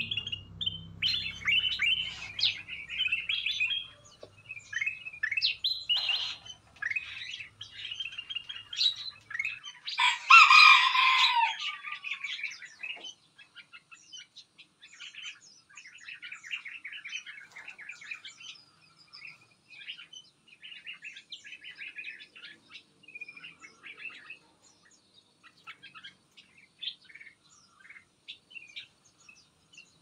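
Several songbirds chirping and twittering in short quick phrases, with one louder, harsher call about ten seconds in. After that the chirping turns softer, into rapid trills.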